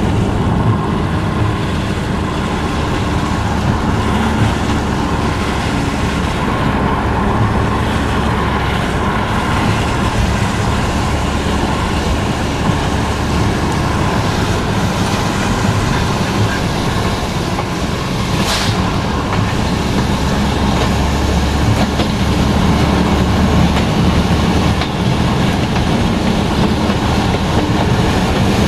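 Steady running noise heard from inside a moving car on a wet road: tyre hiss and engine, with one brief swish about 18 seconds in. Near the end a freight train's wagons roll alongside.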